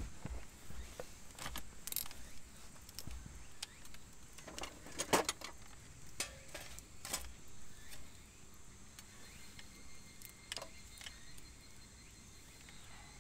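Wood fire crackling in a small metal fire stand, with scattered sharp pops and clicks, the loudest cluster about five seconds in, as thin sticks of split firewood are slid into it.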